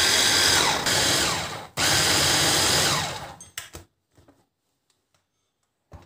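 A SilverCrest hand blender's motor runs on its chopper bowl attachment in pulses. It winds down with a short falling whine and starts again twice before stopping about three seconds in. A few clicks follow, then a light knock near the end.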